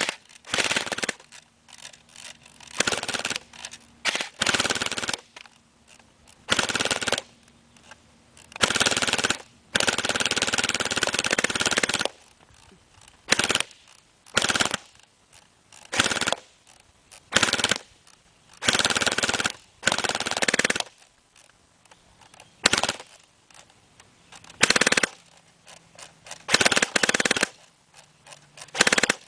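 All-metal SRC airsoft M4 electric gun, wired to a motor scooter battery, firing full-auto in about twenty bursts. Most bursts are short, under a second, and one runs about three seconds.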